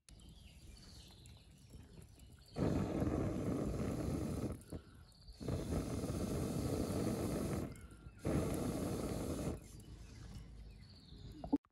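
Three long puffs of air blown through a metal fire-blowing pipe into burning charcoal, fanning the coals. Each puff is a breathy rush lasting one to two seconds, the last one shortest, with short quiet gaps between them.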